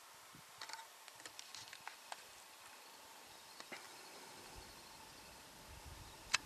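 Faint scattered clicks and taps: a quick cluster in the first two seconds, a couple more midway, and a louder double click near the end, over a faint steady high hum.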